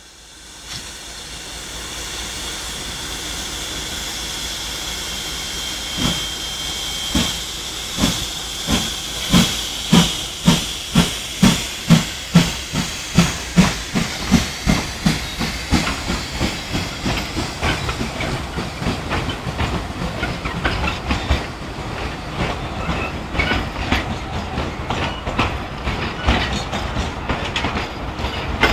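Narrow-gauge steam locomotive pulling away from a standstill. First comes a steady hiss of steam, then exhaust chuffs start about six seconds in, slow at first and quickening to about two a second. After that the carriages roll past with a fast clickety-clack of wheels on the rails.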